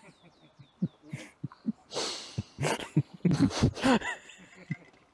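People's voices talking and calling out, unclear, from about two to four seconds in, mixed with a few sharp clicks. In the first second a small bird gives a quick series of short, high, falling chirps.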